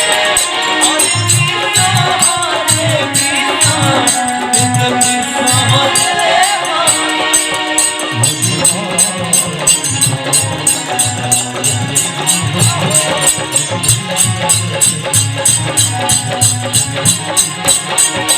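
Devotional kirtan music: small hand cymbals jingle on a steady fast beat over a thumping drum, with a wavering melody line above.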